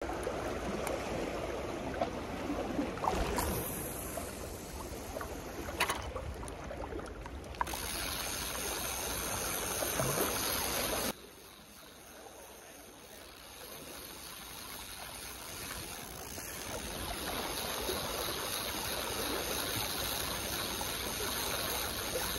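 Seawater washing and splashing against a sea embankment. A few sharp clicks sound in the first eight seconds. About eleven seconds in the level drops suddenly, then slowly builds back.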